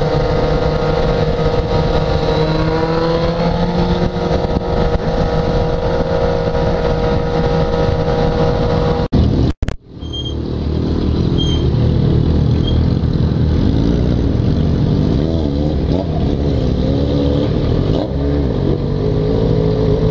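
Yamaha XJ6's inline-four motorcycle engine running at a steady cruise with wind rush. After a sudden cut about halfway, it runs at low speed, its note rising and falling, with other motorcycles running nearby.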